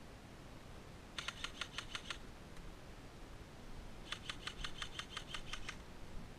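Airsoft rifle firing on full auto in two bursts of rapid, evenly spaced shots at about eight a second: a short burst about a second in and a longer one about four seconds in.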